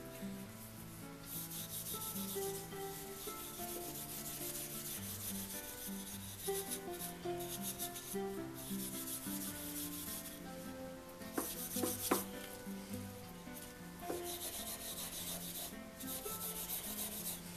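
Steel wool rubbing a wooden tool beam in repeated scratchy strokes with short pauses between them, with soft music underneath.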